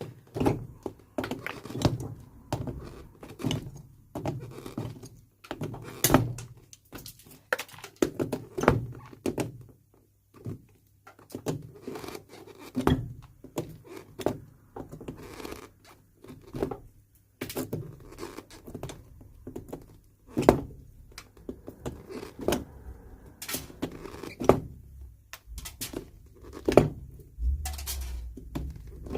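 Metal hand tools working old, rusty nails out of a leather shoe's heel: a long run of irregular sharp clicks, knocks and scrapes.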